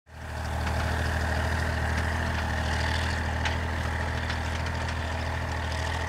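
Steady low drone made of several evenly spaced held tones, fading in at the start and holding level throughout.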